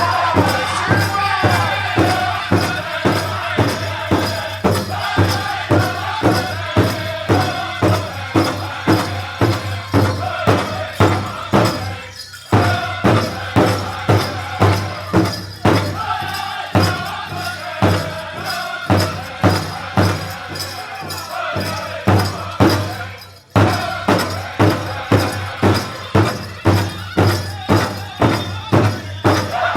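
Powwow drum group singing a dance song in high voices over a steady, even beat on a big drum, about two strokes a second. The drum and singing cut out briefly twice, about twelve seconds in and again about twenty-three seconds in, then pick up again.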